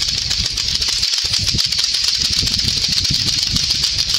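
Several lato-lato (clackers: two plastic balls on a string) clacking at once, their rapid, overlapping clicks merging into a dense, continuous clatter.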